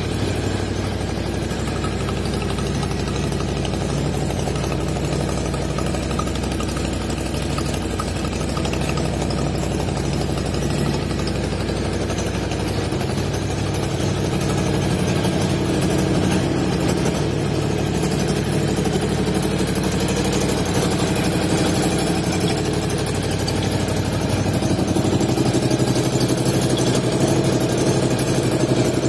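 A 2018 Ducati Scrambler 1100's air-cooled L-twin idling steadily in neutral through its stock twin under-seat exhaust cans, getting a little louder near the end.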